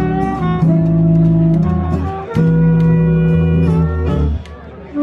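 Small jazz band playing: saxophone holding long notes over upright bass and guitar, with sharp clicks from washboard and cymbal percussion. The music drops away briefly near the end.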